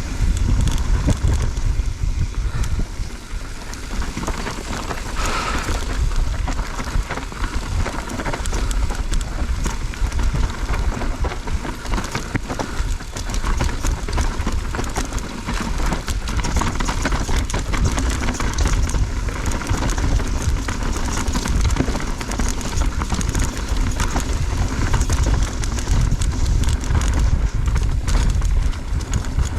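Mountain bike descending a rough dirt trail: tyres rolling and clattering over dirt and rocks with frequent short rattles, under steady heavy wind rumble on a helmet chin-mounted camera's microphone.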